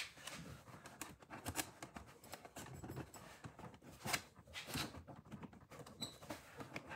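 Hands working at a car's plastic center console: irregular small clicks, taps and rustles, the sharpest click about four seconds in.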